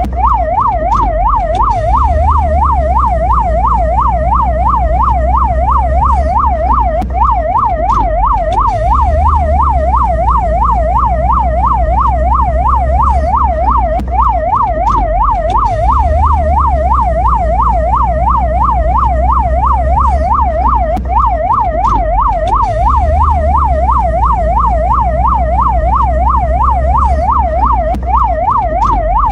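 Mexican ambulance siren sounding in a fast yelp, its pitch sweeping up and down about twice a second, steady and unbroken, over a low rumble.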